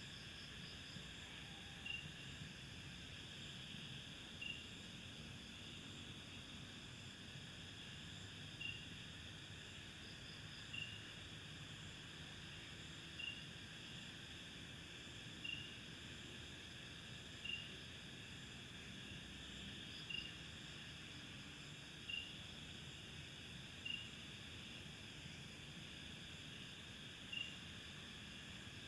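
Chorus of night insects, a steady high-pitched buzz. A single short chirp repeats about every two seconds and stands out above it.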